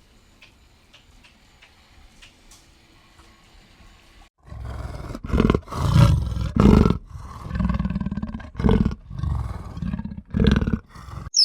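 Faint ticking for about four seconds, then a large animal gives a loud run of deep, pulsing calls, broken by short pauses.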